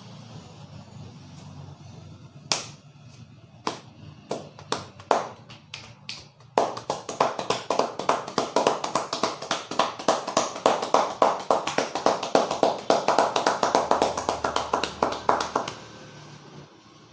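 Percussive massage strokes from a barber's hands: a few single slaps, then a fast, even patter of rapid hand strikes lasting about nine seconds before stopping.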